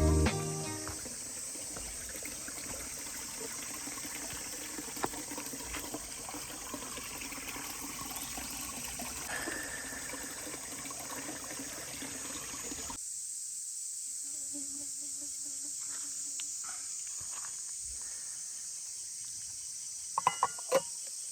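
Steady high-pitched chorus of summer insects in the open air, with a few sharp clicks near the end.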